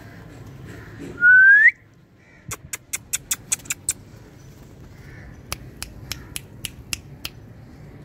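A single loud whistle rising in pitch, lasting about half a second, about a second in, followed by two runs of sharp clicks, the first quick and the second slower, about three a second.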